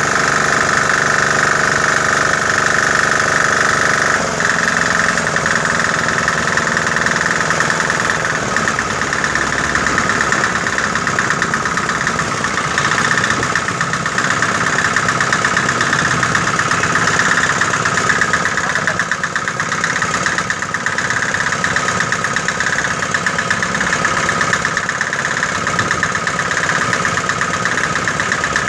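Small GENERAL engine running steadily, driving a Sanchin SC30 three-piston power-sprayer pump by belt. Its note changes about four seconds in and settles into an even, faintly pulsing run.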